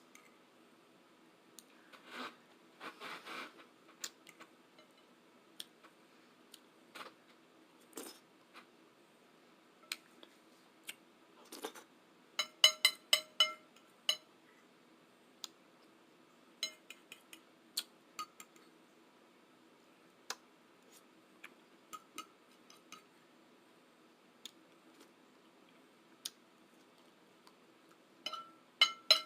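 Cutlery clicking and scraping against dishes while eating, with scattered sharp clicks and quick runs of ringing clinks, about five a second, midway through and again near the end.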